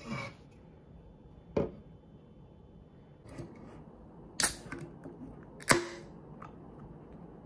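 An aluminium can of Kirin Ichiban Shibori beer being opened: two loud, sharp snaps of the pull tab about a second apart, each followed by a short hiss of escaping gas. A single sharp knock comes earlier, about a second and a half in.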